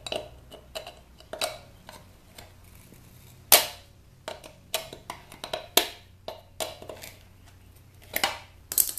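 Irregular sharp clicks and knocks of plastic and metal parts of an electric hot water pot being handled and worked at by hand, with a louder knock about three and a half seconds in and a quick cluster near the end.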